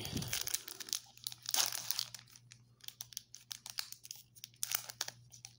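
Foil trading-card pack wrapper crinkling and tearing as it is opened by hand, in irregular crackles that bunch up about a second and a half in.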